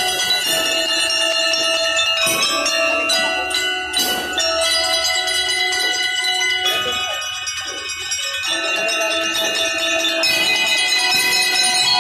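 Drum and lyre corps playing live: metal bell lyres ring out a melody of sustained, bright notes over the corps' drums, with a few sharp drum strikes.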